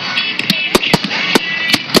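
Fireworks bursting in the sky during a display finale: a rapid, uneven run of about six sharp bangs in two seconds, over background music played through loudspeakers.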